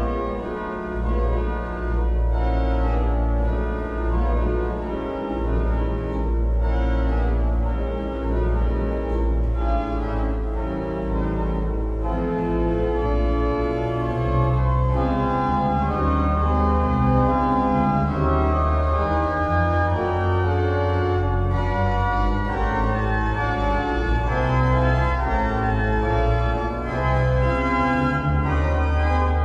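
Walcker pipe organ playing slow, sustained chords over deep held pedal notes.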